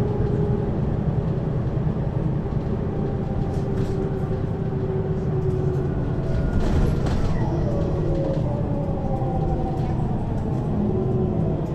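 2003 Mercedes-Benz Citaro city bus running with its ZF Ecomat 2 6HP-592 C automatic gearbox, heard from over the second axle, shifting down out of sixth gear. From about halfway through, a driveline whine falls in pitch as the bus slows.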